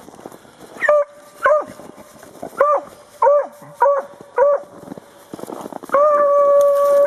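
Beagle baying on a hare's trail: six short bays, then one long drawn-out bay near the end.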